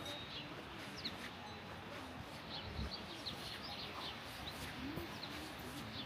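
Outdoor ambience of small birds chirping repeatedly in short, quick notes over a steady background hiss, with faint distant voices of passers-by a couple of times.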